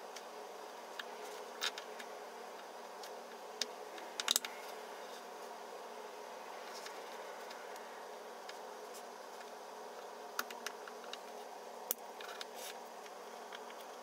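3D-printed plastic snap-fit test pieces being handled: scattered light clicks and taps as the parts are pressed together, pulled apart and set down on the table, over a steady faint hum.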